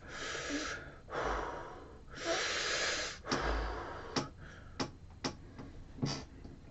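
A man taking three deep breaths, the third the loudest, followed by a handful of short clicks.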